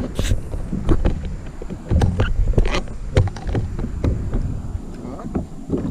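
Wind rumbling on the microphone of a camera mounted on a kayak, with a scatter of sharp clicks and knocks from handling fishing line and gear in the boat.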